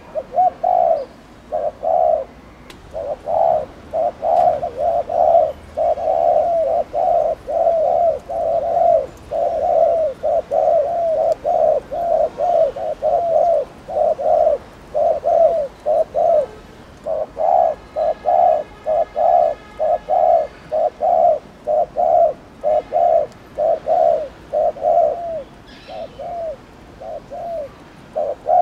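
Male spotted dove giving the rapid bowing coo ('gù'), an excited display call: short coo notes repeated about two a second, with brief pauses twice.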